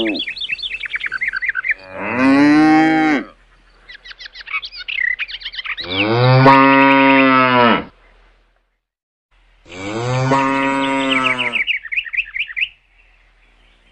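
Cattle mooing: three long, loud moos a few seconds apart, with quick runs of high bird chirps between them.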